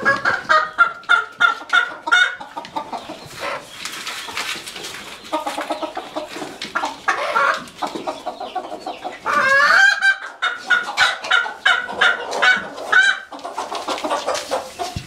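Chickens clucking and squawking in several bouts of rapid short calls, with one rising squawk a little past halfway. The calls are agitated, from a run where a rooster is going at a small, frightened hen.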